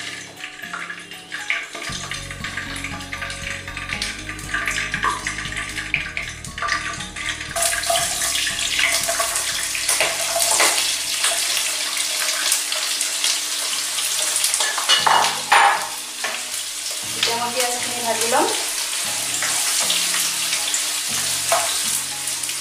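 Sliced onions sizzling in hot oil in a kadai. The sizzle swells about seven or eight seconds in, as they go into the pan, then carries on while a spatula stirs them. Soft background music plays throughout.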